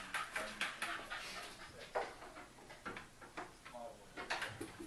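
Dog panting in quick breaths, with a short whimper and a few light knocks and clicks as she paws at the tumble dryer for her ball.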